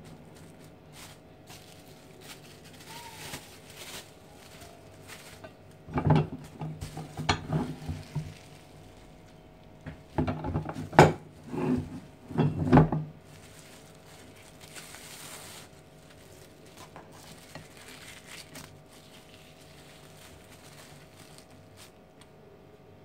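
Metal tortilla press being handled: a cluster of clanks and knocks from its plates and lever about six seconds in, and a louder cluster a few seconds later. Plastic cling film crinkles softly in between.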